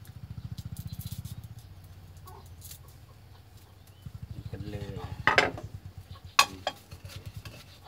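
Wooden pestle pounding in a clay mortar: a few sharp knocks about five and six and a half seconds in, the loudest sounds. Before them a low, fast pulsing drone comes and goes, with a short call near the middle.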